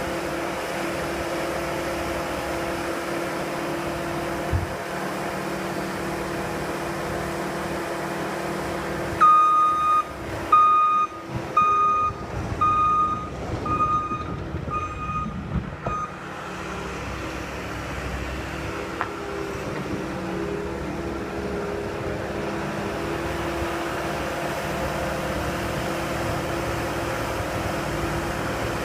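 Skid steer engine running steadily. About nine seconds in, its reversing alarm beeps seven times, about once a second, as it backs up.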